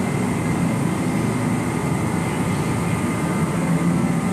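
Steady mechanical drone of a running machine, even in level throughout, with a faint high whine over it.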